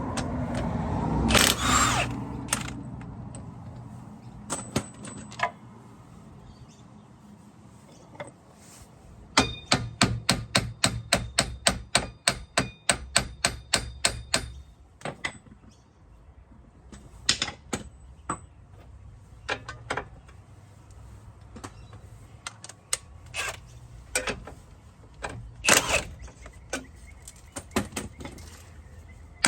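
Sharp mechanical clicks and knocks. Several seconds in there is an even run of quick clicks, about three a second, over a low steady hum.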